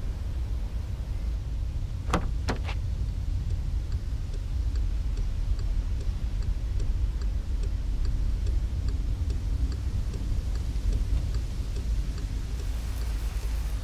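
A steady low rumble from a stopped car, with three sharp clicks about two seconds in, then a faint, regular ticking about twice a second.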